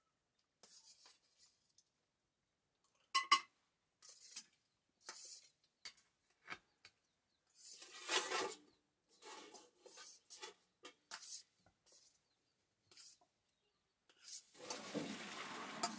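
Noodles being stirred in an iron wok of boiling water with a long utensil: scattered clacks and scrapes against the pan. Near the end a steady rush begins as the wok is lifted and the hot water and noodles are tipped into a steel pot.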